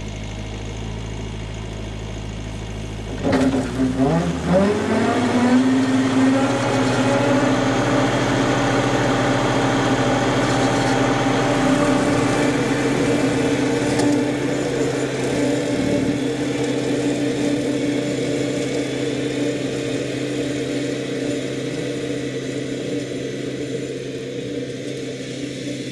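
Kubota tractor idling, then about three seconds in the Land Pride RCR1872 rotary cutter, just fitted with new blades, is set going: its blades spin up with a rising whine as the engine comes up to speed, settling into a steady run. The sound grows slowly fainter as the tractor drives away.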